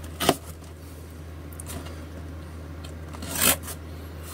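Hands working at a taped cardboard box: three short scrapes and crackles of cardboard and packing tape, over a steady low hum.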